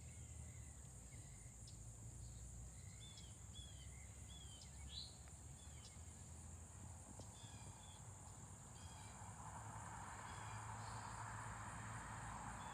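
Steady high-pitched drone of crickets or other insects, with a few short, falling bird chirps in the middle. A soft rushing hiss builds from about nine seconds in.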